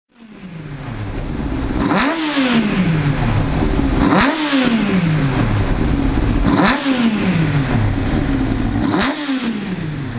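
Yamaha R1 inline-four motorcycle engine running with its airbox off, blipped four times: each time the revs shoot up and fall back to idle over a second or two.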